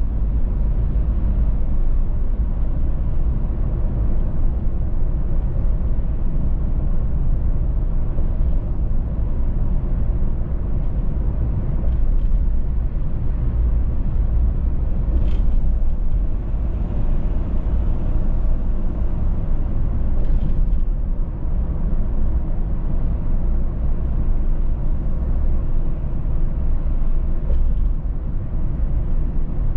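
Steady road noise from a car driving at speed: a deep rumble of engine and tyres, with a few faint ticks now and then.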